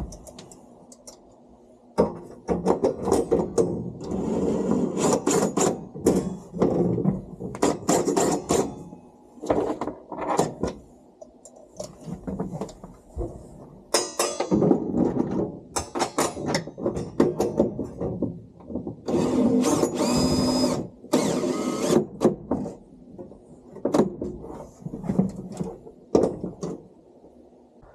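Stop-and-start runs of a cordless power tool and metal clatter as slotted steel angle iron is bolted down into rivet nuts.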